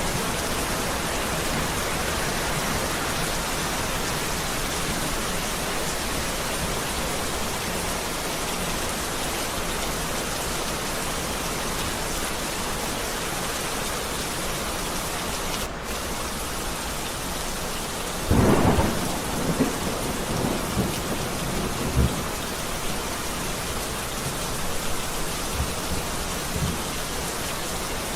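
Heavy rain falling steadily. About two-thirds of the way through a thunderclap cracks loudly and rolls into rumbling, with a few smaller claps after it.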